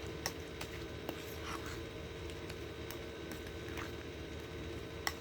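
A spoon stirring and scraping a thick mix of mashed avocado, gelatin cubes and ice cream in a bowl, with a light click every second or so over a faint steady hum.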